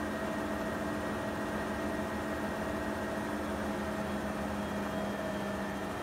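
Profilo CMS140DTR front-loading washing machine spinning its drum at high speed: a steady motor hum with a few held tones over it. The lowest tone drops away about five seconds in.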